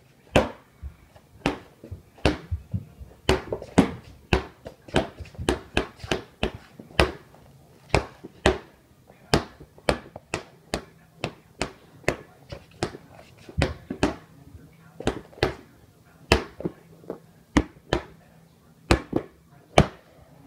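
Rubber playground ball bounced over and over on a hardwood floor: sharp slaps about two a second in an uneven rhythm.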